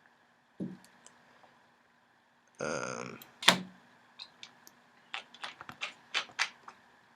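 Small clicks and taps of wires and connectors being handled on a breadboard: a soft thump about half a second in, a brief rustle and a sharper click near the middle, then about ten quick irregular clicks over the last few seconds.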